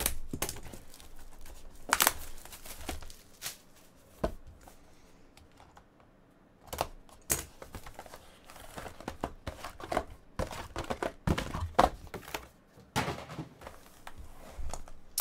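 A cardboard trading-card hobby box being unwrapped and opened by hand: plastic wrap crinkling, with scattered sharp clicks and knocks as the box and its mini boxes are handled and set down on the table, and a quieter pause midway.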